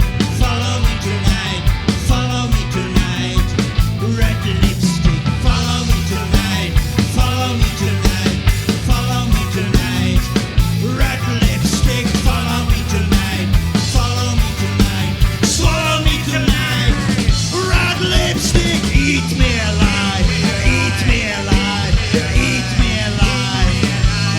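Live rock band playing an instrumental passage: drums keeping a steady beat under bass guitar, guitars and keyboards. From about halfway on, a wavering lead melody line rises above the band.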